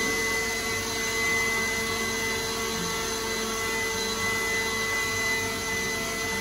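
Dog grooming blower running steadily, a loud rush of air with a steady high whine from its motor, blowing through a wet Newfoundland's coat.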